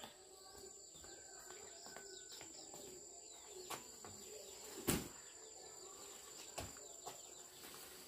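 Insects shrilling steadily in a high thin tone, with faint bird chirps and three sharp knocks or snaps, the loudest about five seconds in.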